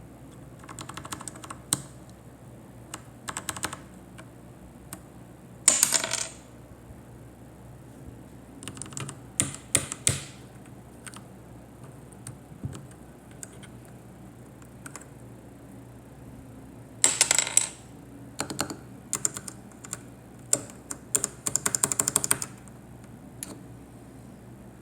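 Keyboard keycaps clicking and clattering in short bursts of sharp plastic clicks, separated by pauses of a few seconds. The keycaps are loose and come off too easily.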